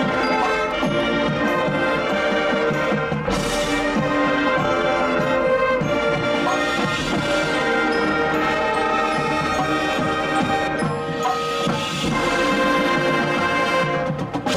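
Marching band playing a brass-heavy passage over percussion, with sustained chords and two big loud hits, one about three and a half seconds in and one about eleven seconds in.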